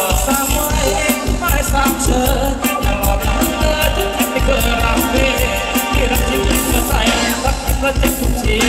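Live Thai ramwong dance music from a band over a PA: a steady beat with bass and percussion, and a singer over the instruments.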